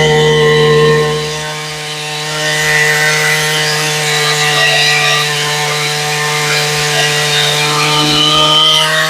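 Chainsaw with a 56-inch bar running at high, steady revs while cutting lengthwise through a log in a chainsaw mill. The engine note holds steady, and it dips briefly in loudness about two seconds in.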